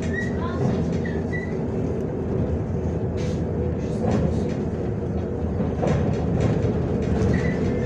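Inside a MAZ-105 city bus: steady diesel engine and running noise, with the cabin rattling. A few short squeaks come near the start, and knocks follow at about three, four and six seconds in.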